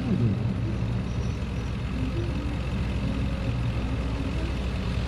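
Three North American SNJ/T-6 Texans' Pratt & Whitney R-1340 Wasp radial engines droning steadily as the formation flies overhead.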